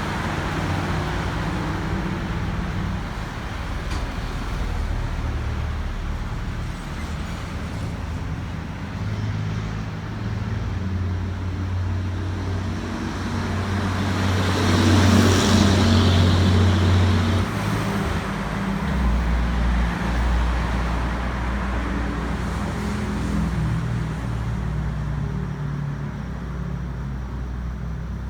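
Motor vehicle engine running with road traffic noise, the low hum shifting in pitch now and then; a louder swell of noise, like a vehicle passing close, peaks about halfway through.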